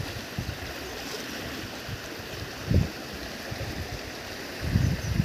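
Water rushing and churning out of a stone culvert into a channel, a steady hiss. Two short low bumps come through it, one just past the middle and one near the end.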